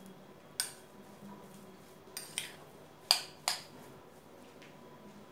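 Metal spoon clinking against a glass bowl while stirring mashed potato: about five sharp, separate clinks, the loudest a little past the middle.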